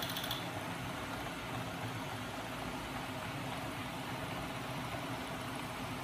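Homemade magnet-coupled crankshaft machine running steadily, driven by a small 12 V electric motor: a steady mechanical whir and hum of spinning shafts, bearings and flywheel. A fast high chatter stops about half a second in.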